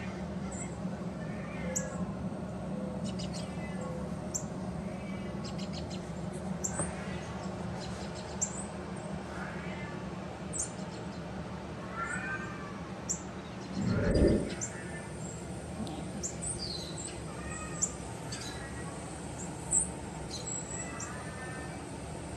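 Persian kittens mewing now and then, short thin mews scattered throughout, among brief high chirps over a steady low hum. One dull thump about 14 seconds in is the loudest sound.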